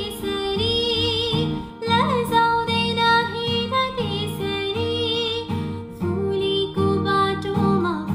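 Background music: a song with a singing voice over sustained instrumental notes.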